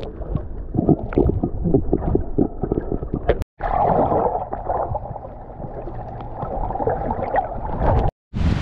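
Water heard from underwater, as an action camera picks it up: dull, muffled sloshing and bubbling with many small clicks. About three and a half seconds in, a denser gurgle of bubbles takes over as snorkelers exhale close to the lens.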